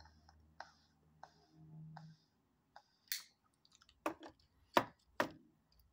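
Pipe smoker puffing on a tobacco pipe while relighting it with a lighter: about seven short, wet lip pops and draws on the stem, spaced irregularly, the loudest about four to five seconds in. A faint low hum from the lighter flame runs under the first two seconds.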